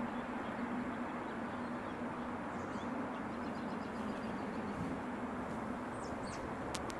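Steady distant traffic rumble with a low hum, and a few faint bird chirps, most of them near the end.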